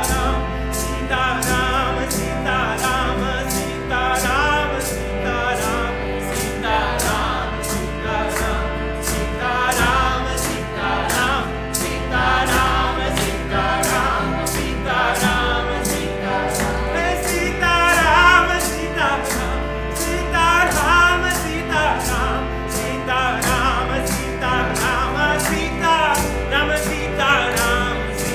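Group devotional chanting of a Hindu kirtan to Hanuman and Sita-Ram, with sustained accompanying tones and a steady, even beat of sharp percussive strikes.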